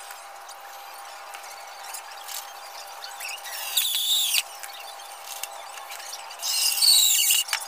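Cordless drill driving screws into a plywood cabinet panel: two short bursts of about a second each, with a high squeal, over a faint steady hum.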